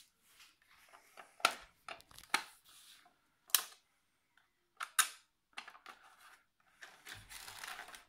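Hands handling the plastic chassis of a 1:18 Ferrari 458 Italia remote-control toy car: a series of sharp plastic clicks and taps, then about a second of rubbing and rustling near the end.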